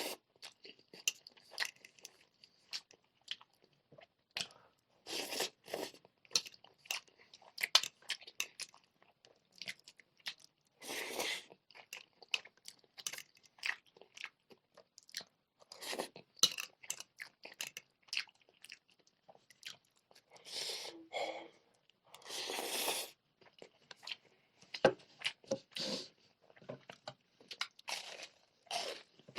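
Close-miked eating: bites into crispy fried chicken pieces and chewing, in irregular crunches, with now and then a longer wet smacking or slurping sound.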